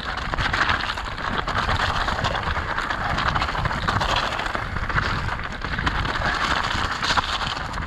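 Mountain bike tyres crunching and skittering over loose gravel and stones on a descent, a dense, continuous crackle of small stones.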